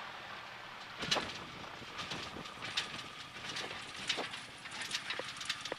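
Kolb Firestar 2 ultralight rolling out after landing on a bumpy grass strip: a sharp knock about a second in, then irregular knocks and rattles from the landing gear and airframe over the bumps, with a faint steady tone beneath.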